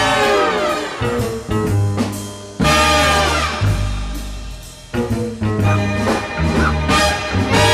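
Background music: swing-style jazz with brass and drums.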